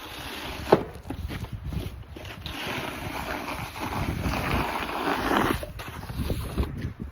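Snow shovel scraping and pushing snow along a driveway, with a sharp knock about three-quarters of a second in.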